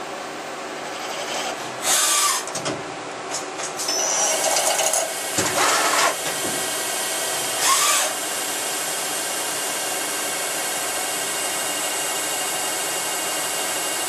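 CNC multi-axis turn-mill machining center running with a steady hum of many fixed tones. Three louder noisy stretches come through it: about two seconds in, between four and six seconds, and near eight seconds. After that the running sound holds steady.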